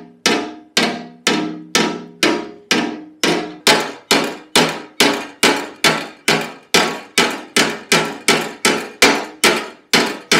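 Panel hammer tapping a steel scooter legshield against a curved dolly held behind it, a steady run of light taps about two to three a second, each ringing briefly off the panel. The taps are gently beating out a dent around a floorboard fixing.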